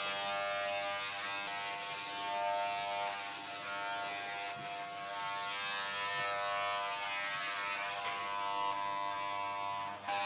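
A WAHL Pet-Pro corded electric pet clipper, fitted with a comb attachment, runs with a steady buzzing hum as it shears a small dog's long coat. The hum dips briefly near the end.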